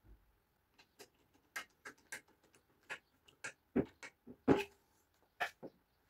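A string of short, sharp clicks and knocks of metal parts being handled: a screwdriver working on a perforated metal carriage plate, which is then fitted onto an aluminium extrusion rail. The loudest knocks come a little past the middle.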